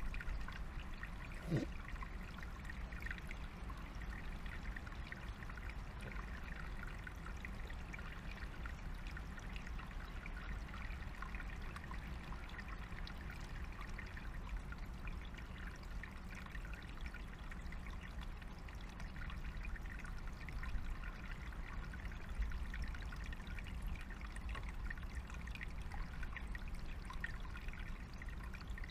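Small forest stream trickling steadily over stones. A brief sound rising in pitch stands out about a second and a half in.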